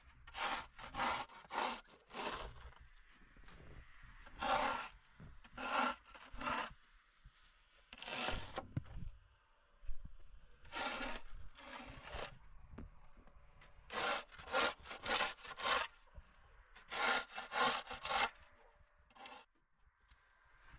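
Rusty shovel blade scraping packed snow and ice off a concrete step, in runs of three to five quick strokes with short pauses between.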